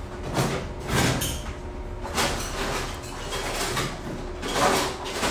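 Several short bursts of rustling, scraping and knocking as objects are handled and moved about, over a faint steady hum.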